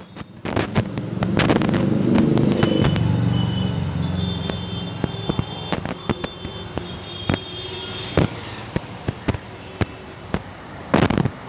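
Firecrackers going off: many sharp bangs and pops at irregular intervals, with a dense volley near the end, over a low rumble that swells about a second in and fades by the middle.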